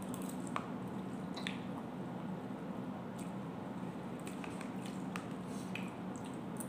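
A person eating instant cup noodles: wet slurping and chewing with scattered short clicks and smacks, over a steady low hum.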